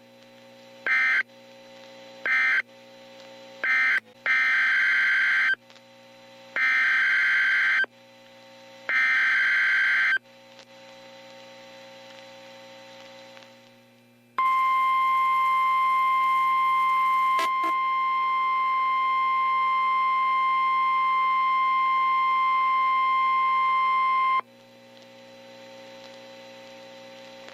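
NOAA Weather Radio Emergency Alert System signalling: three short end-of-message data bursts, then three longer SAME header data bursts about a second each, then the steady 1050 Hz attention tone held for about ten seconds, announcing the next warning. Faint radio hiss fills the gaps.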